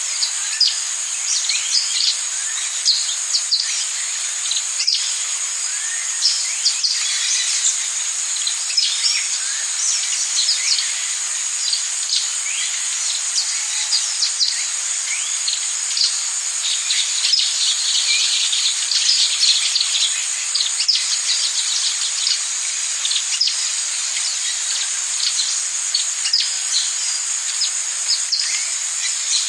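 Tropical rainforest ambience: a steady high-pitched chorus of insects with many birds calling and chirping over it.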